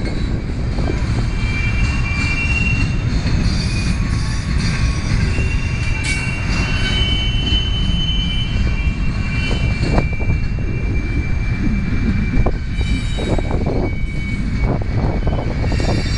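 Double-stack intermodal container train rolling past: a steady, loud rumble of wheels on rail, with high-pitched wheel squeal that comes and goes and a few sharp knocks.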